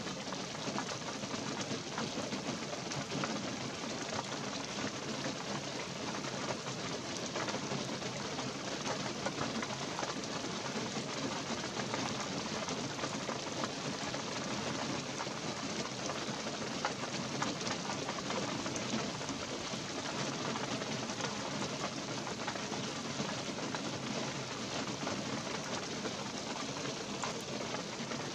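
Light rain falling steadily on pine trees and a forest floor of fallen pine needles: a constant even hiss with many small drop hits scattered through it.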